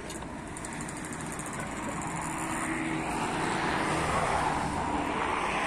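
Distant engine noise, a steady hiss and hum that grows slowly louder.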